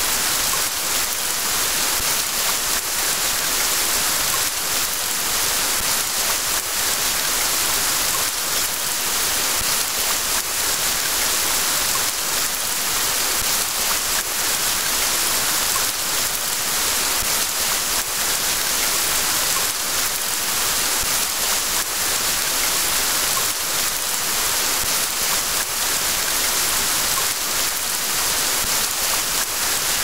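Steady rain, an even hiss of falling drops with no breaks and no thunder.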